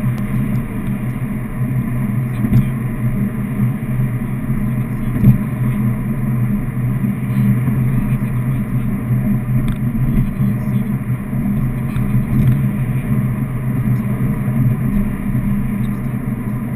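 Steady engine and road noise heard inside a car's cabin while driving at highway speed, with a couple of brief knocks along the way.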